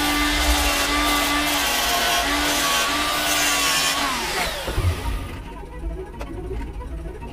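Corded angle grinder running with a steady whine that dips briefly several times, then switched off about four seconds in and winding down with a falling whine.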